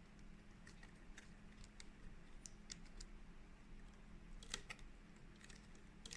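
Near silence with faint, scattered light clicks: a flat print head cable being handled and pushed into its connector port on a printer's carriage board. The sharpest pair of clicks comes about four and a half seconds in.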